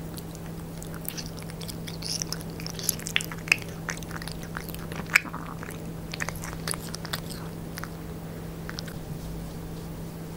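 Devon Rex cat licking and chewing a last mouthful of food from fingers: a run of wet, smacking clicks, a few louder, that die away about eight seconds in. A steady low hum runs underneath.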